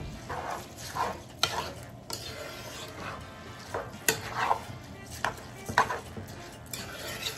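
A metal spoon stirring uncooked long-grain rice in coconut milk in a large pot, scraping and clinking against the pot's sides and bottom in irregular strokes.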